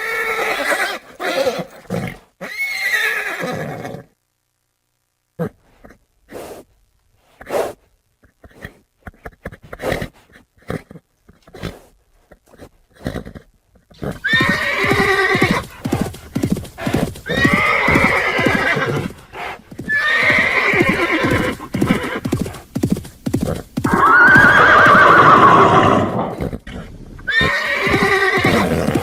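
Horses neighing and whinnying over and over, with a lull of scattered hoof clops in the middle. Near the end comes one long, loud whinny.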